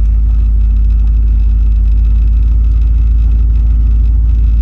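Car engine with an Edelbrock 650 carburetor running steadily at idle, a low, even rumble.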